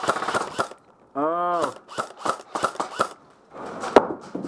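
Airsoft rifle firing in quick single shots, about three to four sharp cracks a second. A short drawn-out shout comes in the middle, and a single louder crack near the end.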